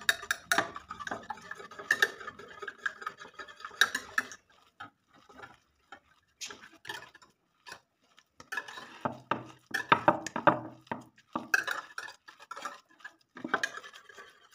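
Small metal whisk beating against the side of a plastic bowl: rapid runs of light clicking and clattering, thinning to scattered clicks for a few seconds in the middle before picking up again.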